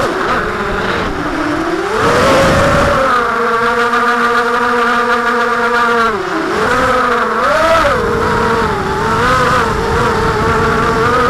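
A small drone's electric motors and propellers whine, heard close up from its onboard camera. The pitch rises and falls with the throttle: it holds steady for a few seconds, drops sharply about six seconds in, then wavers up and down.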